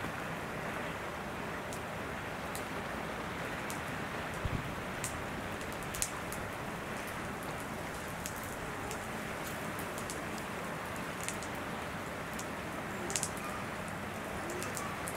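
Steady hiss of outdoor background noise, with a few faint sharp clicks or rustles scattered through it, the clearest about four and a half, six and thirteen seconds in.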